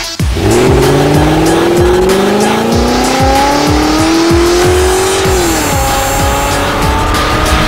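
Car burnout sound effect: an engine note with squealing tires, rising steadily for about five seconds and then dropping, over electronic music with a steady beat.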